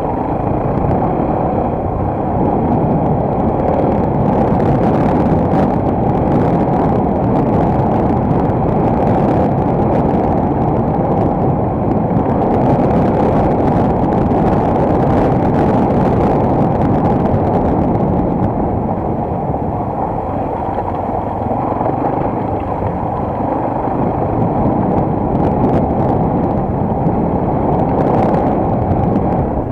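Single-cylinder enduro motorcycle running under way, heard through an action camera, with wind rushing over the microphone. The sound is steady and muffled, easing off a little partway through.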